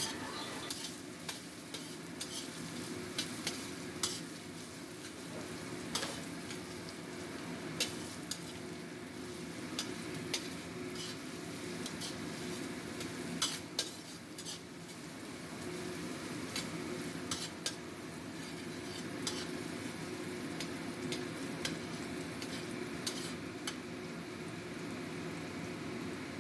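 Metal spatula stirring and scraping diced carrots, shallots and garlic around a stainless steel wok, with irregular sharp clicks as it strikes the pan, over a steady sizzle of the vegetables frying in hot oil.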